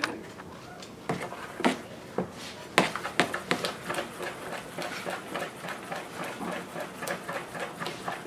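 Wire whisk beating a thick creamy batter in a plastic bowl: a few louder knocks against the bowl in the first three seconds, then steady, fast whisking at about three strokes a second.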